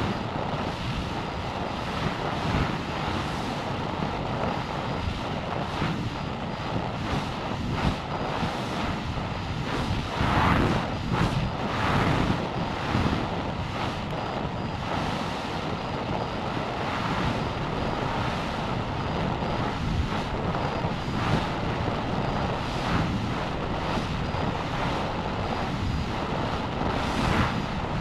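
Steady rush of air over an amateur rocket's onboard camera microphone as it descends through the upper atmosphere, with a few louder gusts about ten to twelve seconds in and again near the end.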